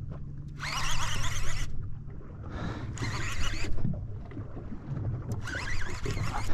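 Conventional fishing reel cranked in three short spells of about a second each while a heavy fish is pumped up from the bottom, over the steady low hum of an idling boat engine.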